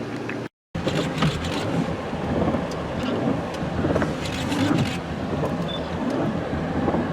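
Heavy rain falling on and around a vehicle whose engine is running, with wind on the microphone. There is a short total dropout about half a second in.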